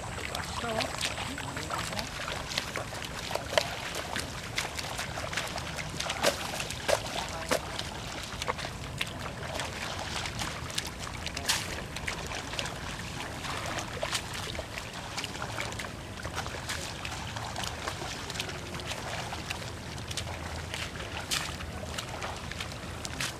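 Water and mud sloshing and splashing in a flooded rice paddy as workers wade and push rice seedlings into the mud by hand, with many small irregular splashes over a steady watery wash.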